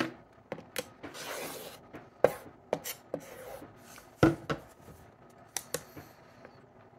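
Omnigrid acrylic quilting ruler being shifted and set down on a cutting mat: a series of sharp clicks and knocks, the loudest a little past four seconds in, with a brief rasping slide about a second in.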